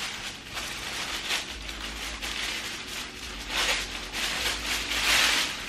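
Paper wrapping rustling and crinkling in irregular surges as a gift box is opened, loudest near the end.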